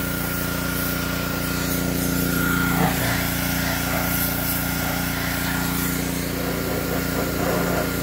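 Small gasoline engine of a pressure washer running steadily at constant speed.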